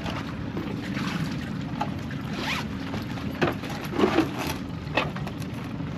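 Zipper of a soft cooler bag being worked and the bag handled: several short rasping zips and rustles, one rising zip about two and a half seconds in, over a steady low hum.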